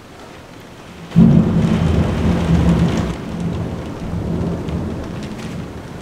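A clap of thunder about a second in, followed by a deep rumble that fades over the next few seconds, over the steady hiss of heavy rain.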